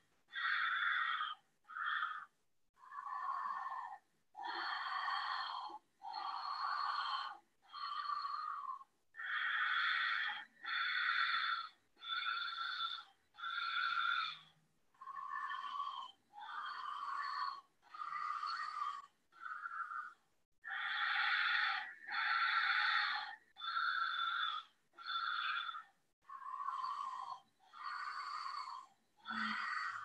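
Ujjayi breathing: a woman breathing in and out loudly through a narrowed glottis, a hissing rush like the sea, about once a second with short silent gaps between breaths.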